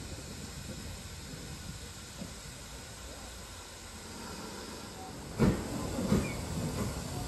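GWR 4575-class 'Small Prairie' 2-6-2T steam tank locomotive approaching slowly with a steady hiss of steam. Two loud thumps come about five and a half and six seconds in.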